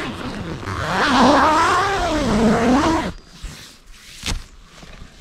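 A drawn-out vocal sound, wavering down and up in pitch for about three seconds, then breaking off. A single sharp click follows a second later.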